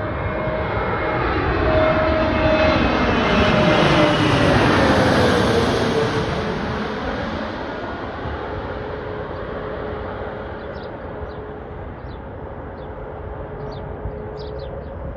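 Jet airliner on final approach passing low overhead. Its engine roar builds to a peak about four to five seconds in, and the engine whine drops in pitch as it passes over, then the roar fades away behind.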